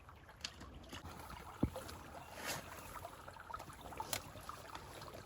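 Shallow stream water running steadily, with a few scattered clicks and one sharp low knock about a second and a half in.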